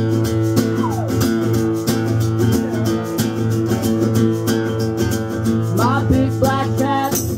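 Band music led by acoustic guitar strumming, an instrumental intro to a country-style song.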